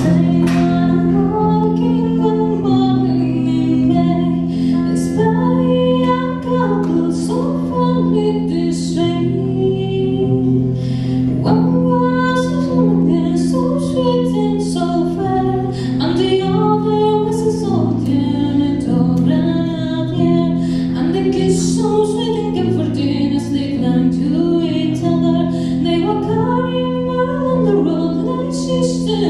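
A female voice singing a slow melody with vibrato over a sustained chord accompaniment whose chords change every few seconds.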